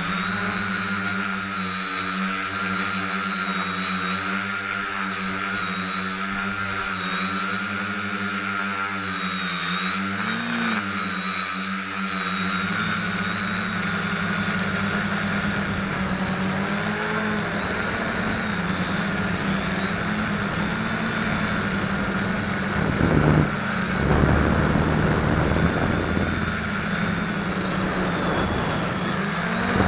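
Motors and propellers of an SK450KK2 quadcopter, picked up by a camera mounted on the frame: a steady buzzing whine with several pitches held together. The pitch lifts briefly about ten seconds in, and near the end the sound turns louder and rougher in surges.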